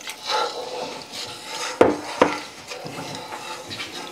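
Milk being poured into a roux in a cast-iron skillet and stirred with a wooden spatula, with two sharp knocks of kitchenware less than half a second apart a little before halfway.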